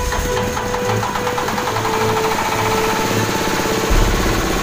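Dong Feng stationary diesel engine running with an even, rapid beat just after being started on its electric starter, with a brief louder surge about four seconds in.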